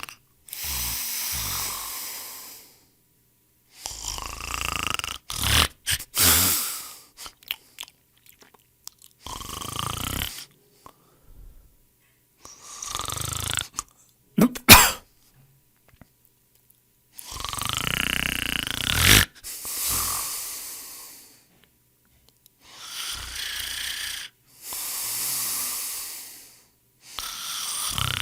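People snoring: a series of snores, each a breath one to two seconds long, separated by short stretches of dead silence. A short, sharp sound about halfway through is the loudest.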